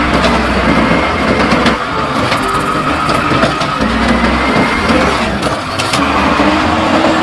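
Automated side-loader garbage truck running at the curb while its hydraulic arm lifts and empties a wheelie bin: steady engine noise with a faint hydraulic whine and a few knocks from the bin.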